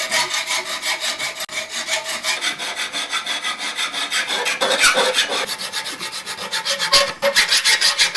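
Hacksaw cutting a steel spear shaft held in a bench vise: quick, even back-and-forth strokes of the blade rasping on the metal.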